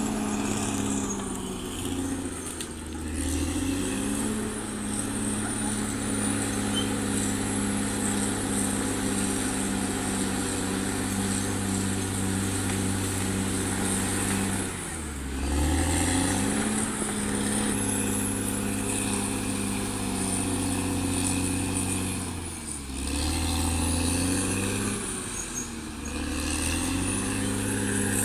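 CAT D6R XL bulldozer's diesel engine running steadily under work, with a faint thin high whine above it. The engine note sags and picks back up briefly about four times, as the load on the dozer changes.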